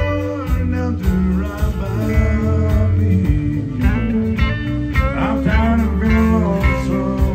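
Live country band playing an instrumental passage: a guitar lead with bent, sliding notes over bass and drums.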